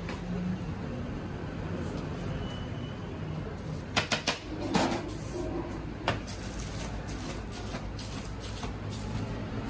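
A knife chopping through flaky burekas pastry onto a cutting board: three quick knocks about four seconds in, a rougher cut just after, and one more knock near six seconds, over the steady hum of the shop.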